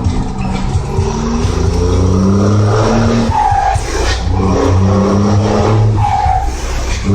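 Loud vehicle engine revving, its pitch rising and falling in repeated waves, with a brief higher squeal about three and a half seconds in and again about six seconds in.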